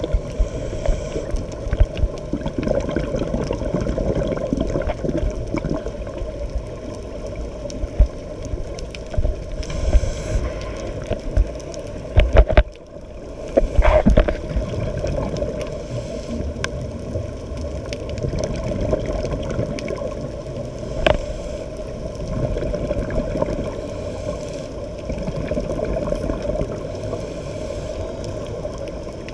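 Muffled underwater noise heard through a sealed camera housing: a steady low rumble of moving water with gurgling from scuba divers' exhaled bubbles. A few sharp knocks stand out, most of them clustered about halfway through.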